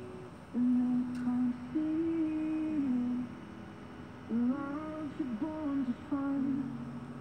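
A person humming a slow tune with no words: held notes that step and slide in pitch, in short phrases with brief pauses.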